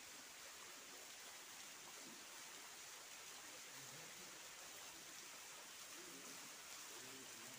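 Faint, steady rush of a small forest waterfall splashing into its pool.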